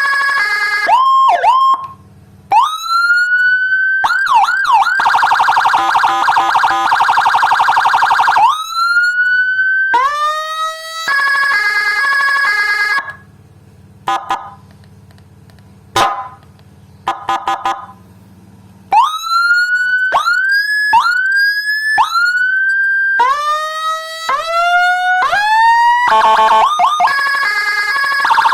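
Replica HHS handheld electronic siren switching through its tones: rising wail sweeps, a buzzing horn tone, stepped pulsing patterns, a string of short rising whoops about once a second, and a fast warble near the end.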